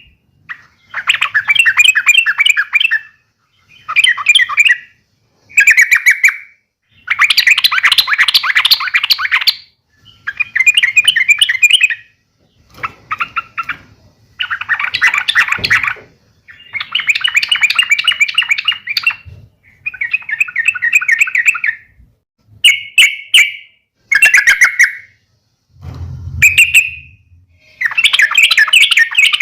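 Yellow-vented bulbul (trucuk) giving harsh, chattering fighting calls of a young bird, in about a dozen loud bursts of one to three seconds with short gaps between. There is a brief low bump near the end.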